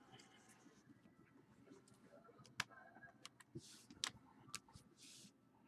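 Faint handling of trading cards, near silent: a few light clicks and a soft sliding swish near the end.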